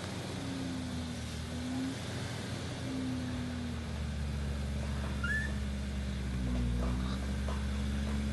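Suzuki SJ410's small four-cylinder petrol engine running at low revs under load as the 4x4 crawls up a steep bank. Its pitch rises and falls gently with the throttle.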